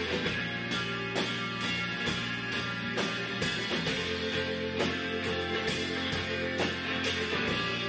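A rock band playing: electric guitar, fretless electric bass and a drum kit, with drum hits keeping a steady beat of about two a second.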